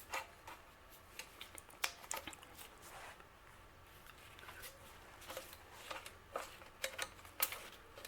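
Faint handling noises: scattered light clicks and rubbing as a hard drive is worked into its drive bracket, the bracket's pins seating in the drive's mounting holes. The clicks come in a cluster near the end.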